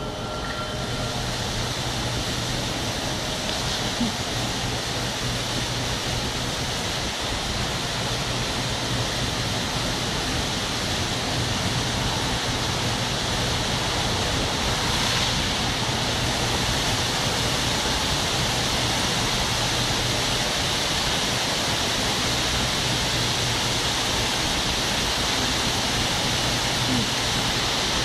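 Indoor fountain jet shooting up and splashing down into its basin: a steady rush of falling water that swells over the first seconds and then holds. A low steady hum runs underneath.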